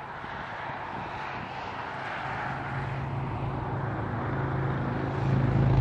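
A steady engine drone with a low hum that grows gradually louder as it draws nearer.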